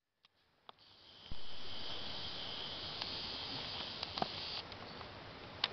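A second of near silence, then streamside ambience with a steady high-pitched insect buzz that stops about three seconds later, with a few faint clicks.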